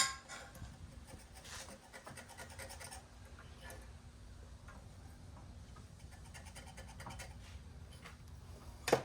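A sharp click, then faint, intermittent scratching of a scribe drawing layout lines on steel.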